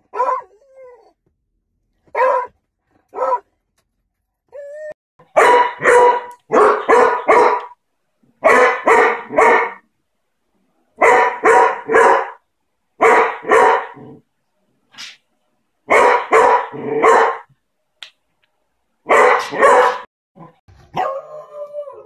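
Beagles barking in quick runs of three or four loud barks with short pauses between the runs. A few sparser, thinner barks come first, and near the end there is a longer, falling, drawn-out bark.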